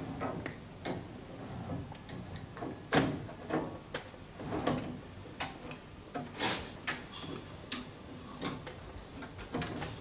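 Irregular metal knocks, clicks and short scrapes of hand work on a car body's roof frame, about one or two a second, the loudest knock about three seconds in.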